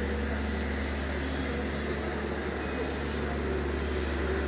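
Steady low background rumble with an even hiss, unchanging throughout: the ambient noise of an open urban courtyard.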